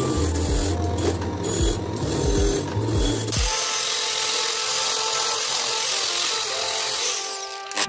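Power wire wheel scrubbing rust off the hydraulic jack's metal pump body. About three and a half seconds in it gives way to an angle grinder with a flap disc grinding the jack's base plate, a steady, higher-pitched grinding noise.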